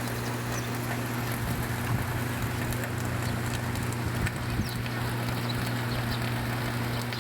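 Steady rain falling, with a constant low hum underneath and a few scattered taps.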